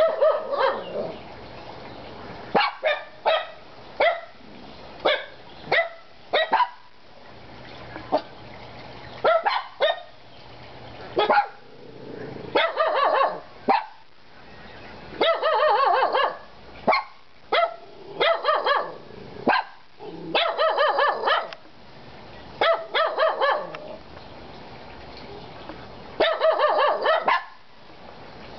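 Dogs barking, some single barks and some quick runs of several barks, with short pauses in between.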